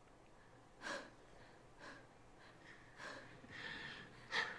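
Quiet, heavy breathing with short sharp breaths and gasps about a second apart, the last one the loudest.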